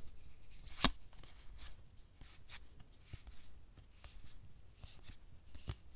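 Magic: The Gathering cards being flipped through by hand: soft slides and light clicks of card stock, with sharper snaps about a second in, about two and a half seconds in and near the end.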